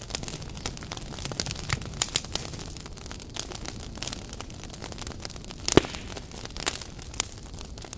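Firewood burning briskly inside a traditional Korean agungi firebox: steady crackling with many small pops and one louder pop a little before six seconds in.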